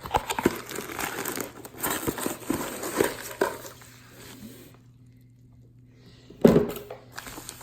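A shipping package being opened and handled: rustling and crinkling of packaging with scattered clicks and taps, then a quieter stretch and a single loud knock near the end.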